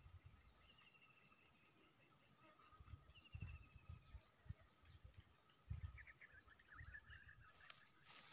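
Faint outdoor ambience close to silence: small birds chirping, with a short falling trill about a second in, another around three seconds, and a quick run of chirps near the end, over a steady high hiss and scattered low muffled bumps on the microphone.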